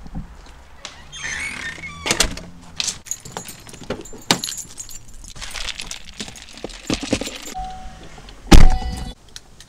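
A car's side door being opened and shut: jangling keys and clicks of the door handle, then the door pulled closed with a heavy thump near the end.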